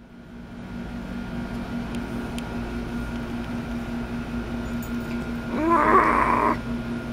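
A steady hum runs under the scene. About five and a half seconds in comes a person's high, squeaky voice, lasting about a second, of the kind put on for a hand puppet.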